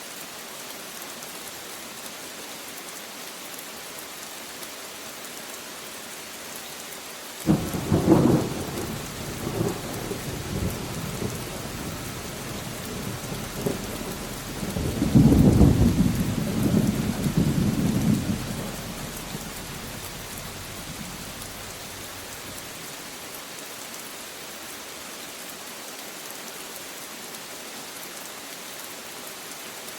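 Steady rain hissing throughout, broken by a thunderclap that starts suddenly about a quarter of the way in and rolls into rumbling. A second, louder rumble swells around the middle and dies away before two-thirds of the way through, leaving the rain alone.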